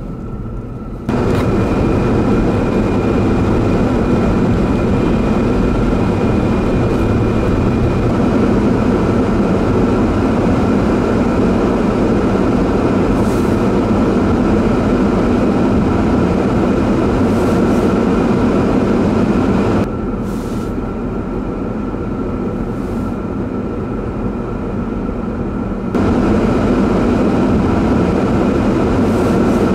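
Steady rumble of highway traffic and road noise, with a constant faint hum through it. It drops in level about twenty seconds in and comes back up about six seconds later.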